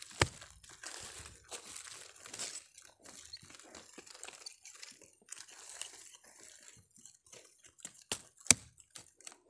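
Hand scraping and clawing dry soil and leaf litter, an irregular run of crackles and scrapes with a sharp crack near the end.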